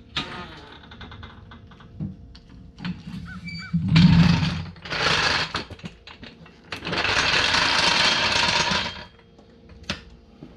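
Pneumatic impact gun running in three bursts: a short one about four seconds in, another just after, and a longer one of about two seconds near the middle.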